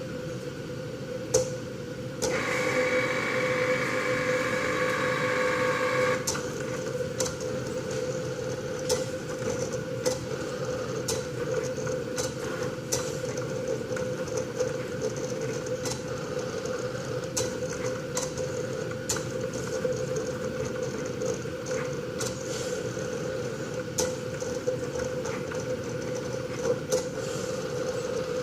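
Cricut cutting machine running a job: a steady motor hum, a louder whir for about four seconds starting two seconds in, and scattered clicks as the carriage and mat move.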